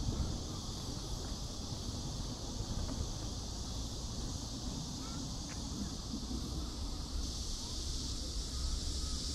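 Steady outdoor park ambience: a low rumble under a high, even hiss that grows louder about seven seconds in, with a few faint short chirps.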